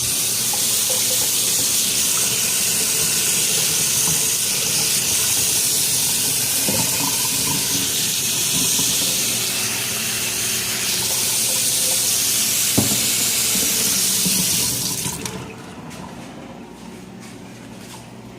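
Kitchen tap running hot water into a sink: a steady rushing hiss that stops about fifteen seconds in when the tap is turned off. A single sharp knock sounds a little before it stops.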